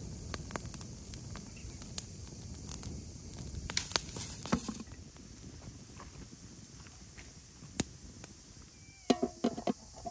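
Wood fire crackling with scattered sharp pops. A few knocks come about four seconds in, and near the end a quick run of clinks with a ringing tone as the aluminium pot's lid is set in place.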